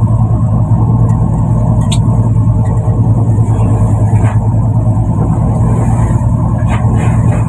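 Fishing boat's engine running with a steady low drone, and a few light knocks from work on deck.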